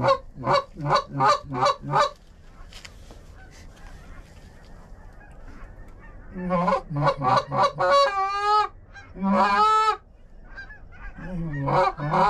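Canada goose honking. Quick runs of short honks, about three a second, come at the start and again past the middle. Two longer, wavering honks follow the second run, and another run of honks begins near the end.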